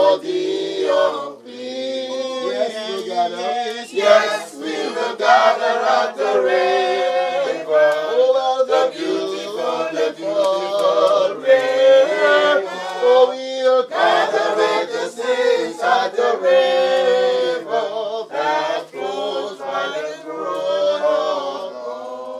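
A group of mourners, men and women together, singing a hymn in unison.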